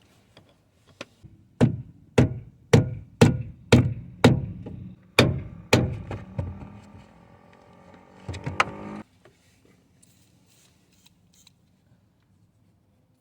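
A flat screwdriver being hammered to force open a stuck part on a steering rack: about eight sharp metal blows, roughly two a second, then one more a few seconds later.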